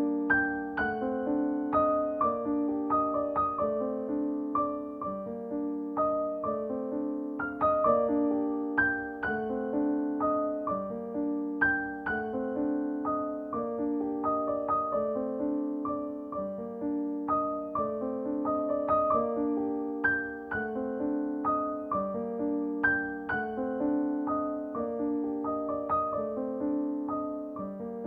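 Background piano music: soft notes struck in a gentle repeating pattern, the chords changing about every two seconds.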